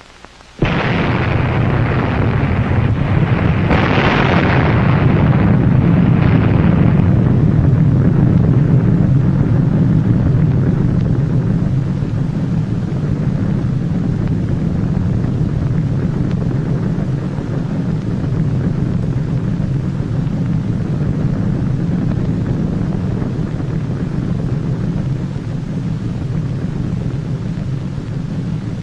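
Atomic bomb explosion: a sudden loud boom about half a second in, a second surge about four seconds in, then a long deep rumble that slowly fades.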